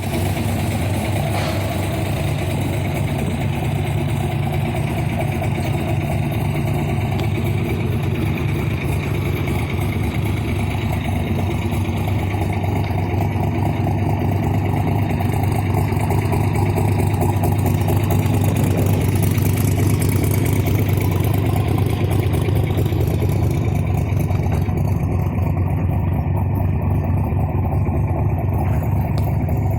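1967 Corvette's 427 cubic-inch big-block V8 (the 435 hp version) idling steadily.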